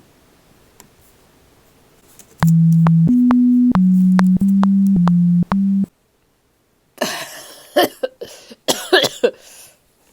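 A run of six loud, steady low electronic tones stepping between pitches, each note change marked by a click. After a second of dead silence, a person coughs several times in a ragged string.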